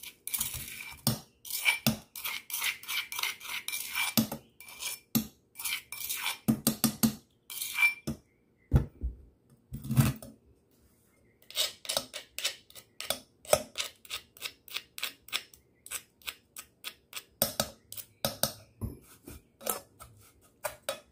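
A metal spoon scraping and clinking against metal cooking pots as a paste is scraped out of a small pot into a larger one. The strokes are quick and irregular with a ringing metallic clink, and there is a pause of a few seconds near the middle.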